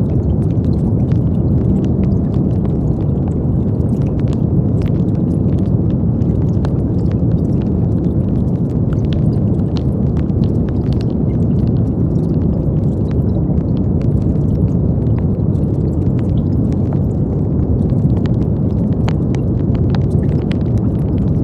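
Brown noise: a steady, deep rumbling hiss that holds an even level, with faint scattered clicks above it.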